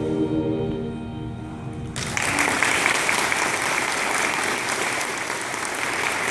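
A song's final held chord dies away, and about two seconds in an audience starts applauding, clapping steadily to the end.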